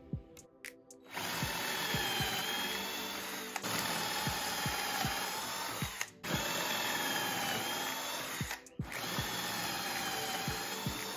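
Power drill boring pocket holes through a Kreg pocket-hole jig, in three runs of a few seconds each. In each run the motor's pitch sags as the bit cuts into the wood, then rises again.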